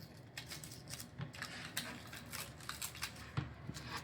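Protective paper being peeled off an acrylic panel and tearing as it comes away: a run of irregular, scratchy crackles.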